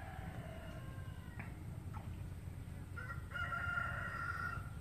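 A bird gives two long, drawn-out calls. The first trails off about a second in, and a second, louder one is held from about three seconds in until near the end.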